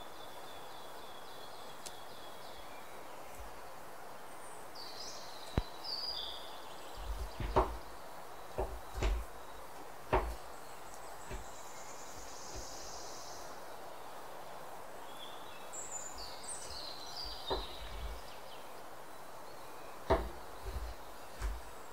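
Chef's knife chopping dates on a bamboo cutting board: irregular sharp knocks of the blade hitting the wood, over a steady background hiss. There is a quiet stretch in the middle.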